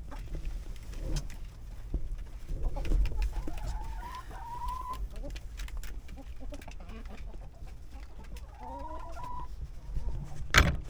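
Chickens calling, with two drawn-out rising calls about four seconds in and again near nine seconds, over a low steady rumble. A sharp knock comes just before the end.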